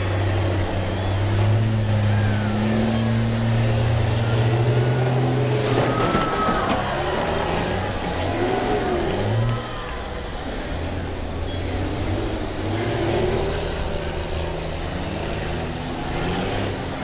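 School bus engines running hard under load and revving, their pitch rising and falling as the buses shove against each other, with a few knocks of metal about six seconds in. The sound drops suddenly in loudness just before the halfway point.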